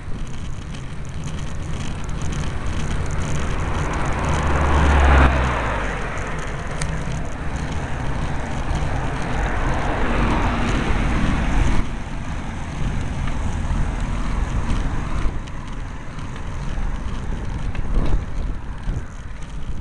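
Wind rushing over the microphone of a camera on a bicycle climbing a road, over a steady low rumble of road noise. The rush swells louder about four to six seconds in and drops back suddenly about twelve seconds in.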